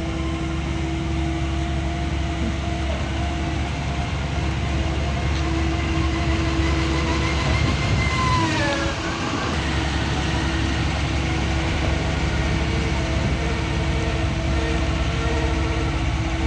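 Doosan DX140 wheel excavator's diesel engine running steadily under work, with a steady hum over the low rumble. About eight seconds in, a high whine falls in pitch as the rumble briefly drops.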